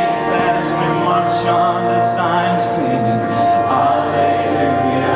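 Live band music: a Christian rock band playing with held chords and repeated cymbal crashes, with wordless sung vocals over it.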